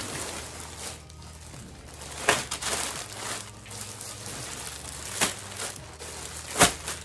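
Plastic packaging crinkling and rustling as plastic-wrapped clothes are pulled from a poly mailer bag, with a few sharper crackles.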